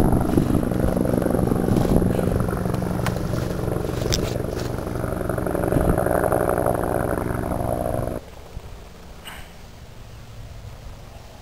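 A motor or engine running steadily with a low, even hum, cutting off abruptly about eight seconds in and leaving a quieter outdoor background.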